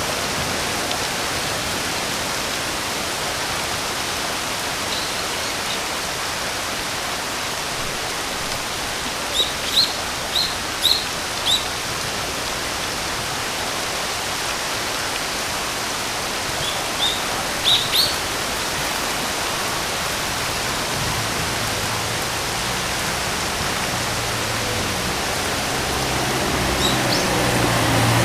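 Steady rain hiss, with a bird giving two short runs of quick chirps, about ten seconds in and again near eighteen seconds. A low hum comes in and grows louder near the end.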